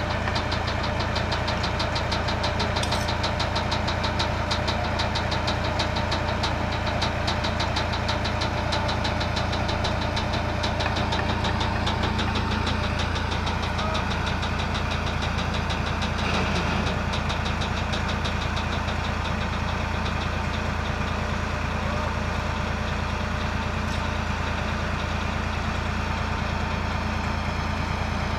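Massey Ferguson 260 tractor's three-cylinder diesel engine running steadily with a fast diesel clatter, its low note shifting slightly about halfway through.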